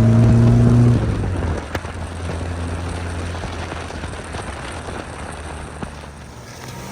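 A car engine held at high revs, which is lifted off about a second in, followed by a steady hiss of water spray and splashing as the car goes through the flooded ford, with the engine fading beneath it.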